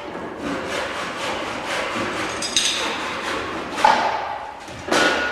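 Hand-tool blows on boat timber: a run of close knocks, a short metallic clink about halfway through, then two louder, sharper hits near the end.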